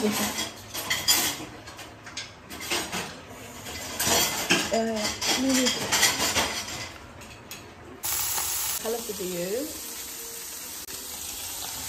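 Irregular clatter and rustling for about the first eight seconds, then a steady sizzle of diced cubes frying in oil in a wok.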